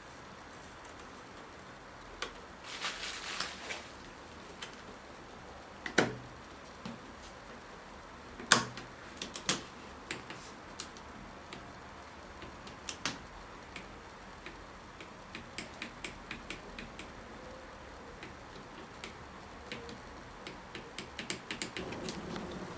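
Scattered clicks and knocks of tools and parts being handled while a mountain bike is assembled by hand. There are two sharper knocks about six and eight and a half seconds in, and a run of small quick ticks in the last several seconds.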